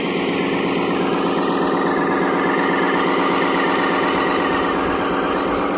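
Engine idling steadily with a fast, even pulse.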